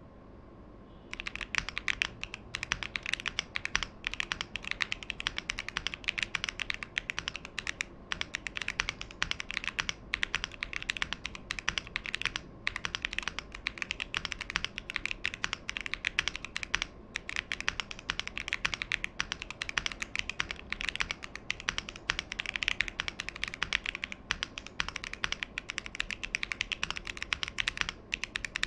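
Fast, continuous typing on a Tofu65 v2 custom mechanical keyboard with stock TTC Holy Panda tactile switches, a carbon-fibre plate, no foam and GMK-style keycaps. The typing starts about a second in and goes on with only brief pauses.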